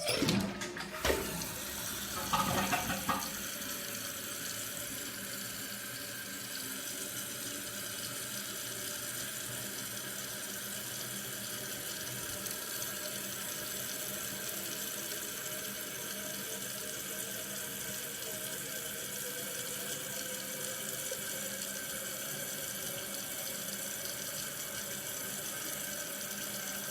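2010 Kohler Wellworth toilet flushing with its tank lid off: a loud rush of water with a few knocks in the first three seconds, then the fill valve hissing steadily as the tank refills, cutting off suddenly near the end when the tank is full.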